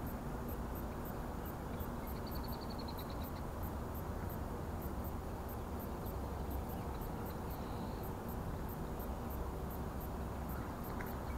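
Steady low outdoor background noise on the water, with two faint, brief high-pitched trills from a small animal: one about two seconds in and one about seven and a half seconds in.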